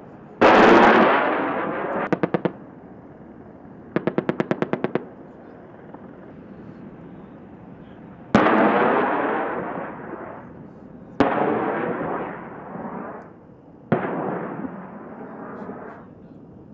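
Weapons firing on a live-fire range. A heavy blast about half a second in dies away over a second or two. Two short bursts of rapid fire follow at about ten rounds a second, the rate of the AH-64 Apache's 30 mm M230 chain gun. Three more sharp blasts come about three seconds apart, each trailing off over about two seconds.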